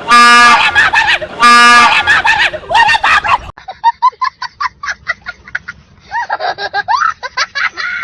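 Train horn blaring very loudly in two short blasts, the first cutting off under a second in and the second about a second and a half in. After a cut, rapid shrieks and squealing laughter.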